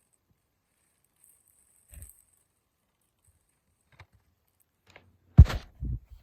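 A sealed DVD case being handled: mostly quiet, a soft knock about two seconds in, a light click, then a loud knock followed by a second thud near the end.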